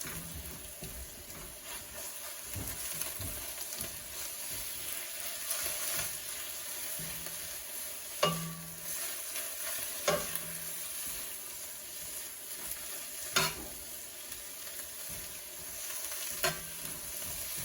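Fried mint and egg with sugar just stirred in, sizzling in sesame oil in a frying pan while being stirred, with a steady hiss. A utensil knocks sharply against the pan four times. The mix is almost done.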